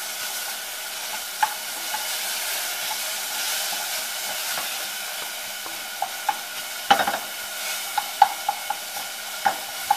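Minced shallots, garlic, ginger and chili sizzling in a stainless steel saucepan as a wooden spoon stirs and scrapes them. Scattered sharp taps of the spoon against the pan, most of them in the last few seconds.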